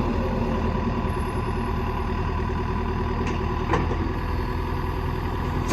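John Deere 160LC excavator's diesel engine running steadily, with two short clicks a little over three seconds in.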